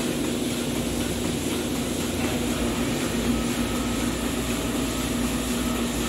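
Dairy barn machinery running with a steady, unchanging hum and a noisy rush over it.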